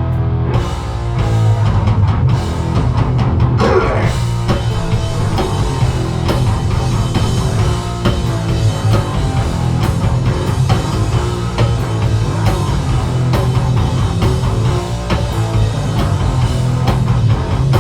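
Live rock band playing loud and without vocals: distorted electric guitars, bass and a drum kit driving through the opening of a heavy song.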